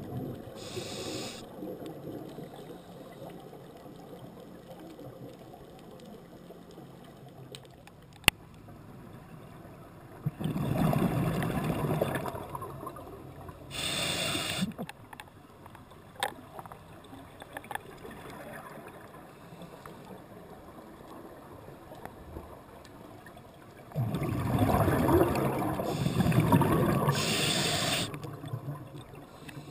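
Scuba diver's regulator heard underwater: two long bubbling exhalations, with short hissing inhalations between them, and one sharp click about eight seconds in.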